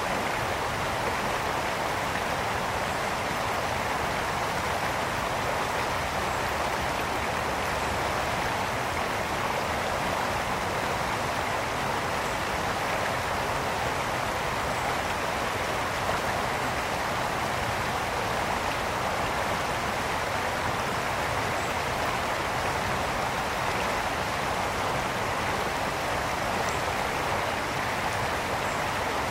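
Mountain brook flowing, a steady rushing babble of water over stones.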